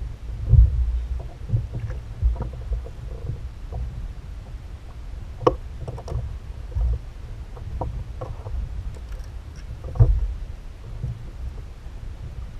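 Low, steady rumble of water and wind around a fishing kayak at sea, with a few sharp knocks and small clicks of gear being handled against the plastic hull.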